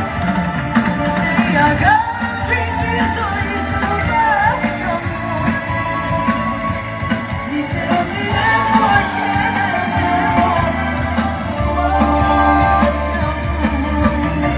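Live band music with singing, played loud through a PA.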